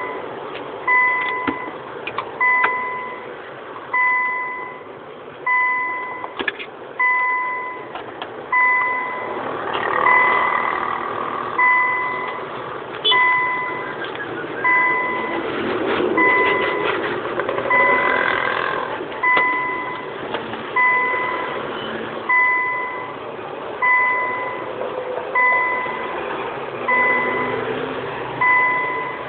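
Electronic beeper sounding a short steady beep of a single pitch about every second and a half, over a background of scattered clicks and knocks.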